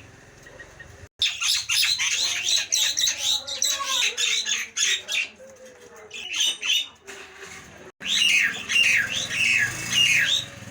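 Nias hill myna calling in loud, harsh squawks and rapid strings of whistled notes, with a short lull about two-thirds of the way through before another run of quick falling notes.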